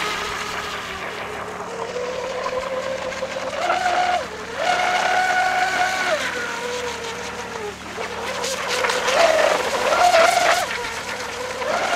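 Electric RC tunnel-hull boat running at speed on 4S: its 1500 kV inrunner motor and propeller give a whine that rises and falls as the throttle is worked. The whine steps up about four seconds in, drops back past the middle, and climbs again near the end.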